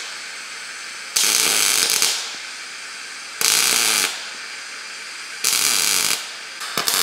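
Wire-feed welder arc crackling in short bursts as steel strips are welded onto a sheet-steel bracket: three welds of under a second each, with a fourth starting near the end.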